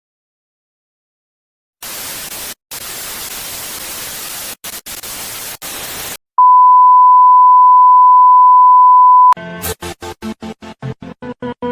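Intro sound effects: a TV-static hiss with brief dropouts, then a loud steady test-tone beep held for about three seconds, then a stuttering pulse that speeds up as music starts.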